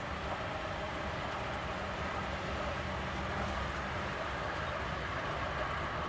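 Mitsubishi L200 Triton 3.2 turbodiesel pickup driving at highway speed: a steady mix of low engine rumble and road noise, freshly fitted with a new timing chain.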